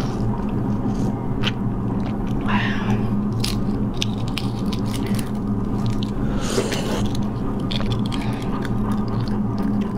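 Close-up eating sounds from a half-hatched chicken egg (balut): biting into it, chewing, and cracking and picking at the eggshell, with scattered sharp clicks over a steady low hum.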